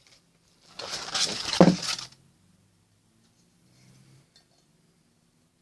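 Ceramic mug being handled, clinking and knocking for about a second and a half, then quiet handling.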